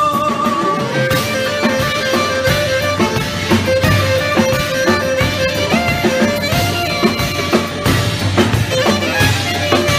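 Instrumental break in a Greek laiko song: a lead melody of held notes played over a steady drum beat and strummed or plucked strings, with no singing.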